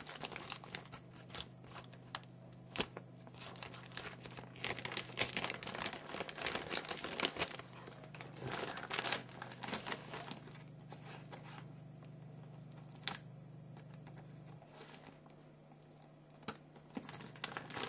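Brown paper wrapping of a parcel crinkling and rustling in bursts as it is handled and unfolded, with a quieter stretch about two-thirds of the way through.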